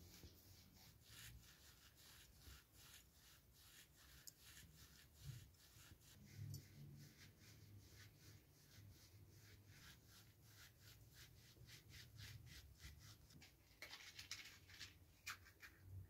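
Dried herbs being rubbed and crumbled between the palms, a soft rhythmic rustling of about two to three strokes a second. Near the end, a few sharper clicks and rustles.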